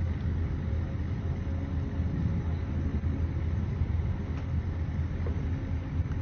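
Steady low rumble of an engine running, even throughout with a faint steady hum above it.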